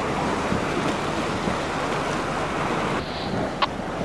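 Wind on the microphone over sea water splashing and churning around a small inflatable boat, as a steady rush of noise. A brief sharp click near the end.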